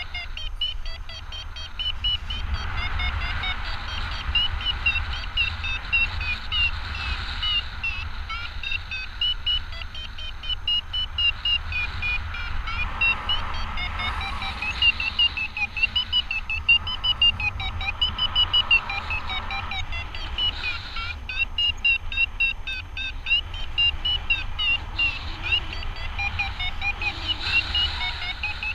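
Paragliding variometer beeping rapidly throughout, its pitch rising and falling as the climb rate changes: the climb tone that signals rising air. Wind rumbles on the microphone underneath.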